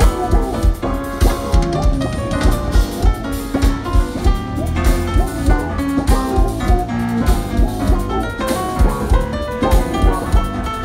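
Live jazz-funk band playing: six-string electric bass, keyboards and drum kit with a steady beat, recorded on a phone from the crowd.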